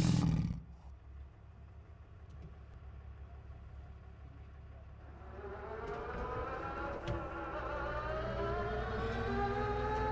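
A loud noise cuts off in the first second, leaving a pickup truck's engine running with a low rumble. From about halfway its pitch climbs steadily as the truck speeds up.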